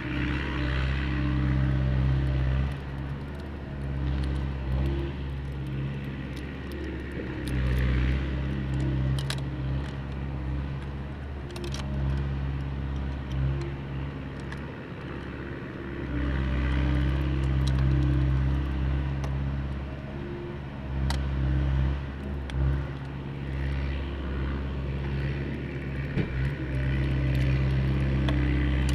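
A motor running steadily with a low droning hum that rises and falls in loudness at times, with a few light clicks.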